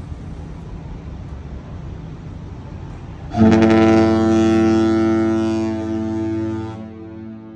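Celebrity Summit cruise ship's horn sounding one long, deep, loud blast that starts abruptly about three seconds in, holds for over three seconds, then trails away. Before it there is a steady low rumble.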